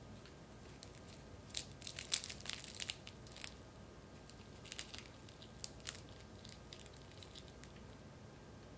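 Crisp crackling and crunching of a flaky puff-pastry cream puff shell being broken into: a dense run of crackles, then a few scattered ones.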